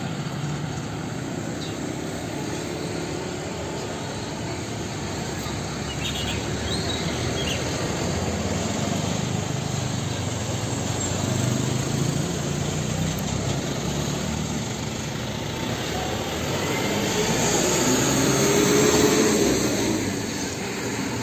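Road traffic: motorcycles and cars running past with a steady rumble that swells near the end.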